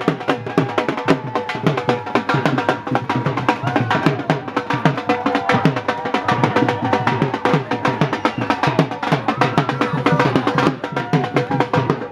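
Rapid, steady drumming, many strokes a second without a break, with a melody line over it.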